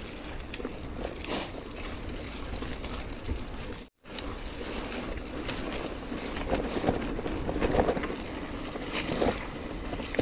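Wind buffeting the microphone over the rumble of a Sonder Camino Ti gravel bike's tyres on a rough track, with scattered small knocks and rattles from the bumps. The sound cuts out for a moment about four seconds in.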